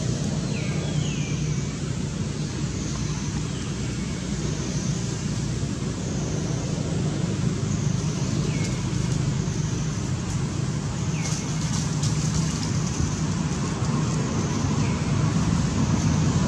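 Steady low background rumble outdoors, with faint short falling chirps every few seconds.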